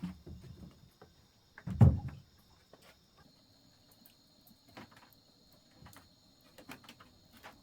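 One heavy, low thud about two seconds in, among scattered light knocks and clicks, over a faint steady high-pitched hum.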